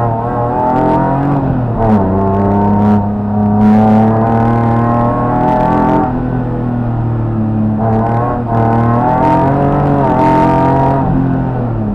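A BMW race car's engine heard from inside the cockpit, accelerating hard. The revs climb and drop through several gear changes and lifts, with a few short sharp clicks.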